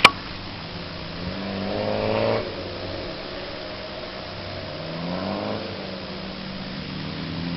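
Off-road 4x4's engine revving in two rising bursts, one about a second and a half in that cuts off sharply, and a weaker one around five seconds, over a steady running note. A sharp click or knock right at the start.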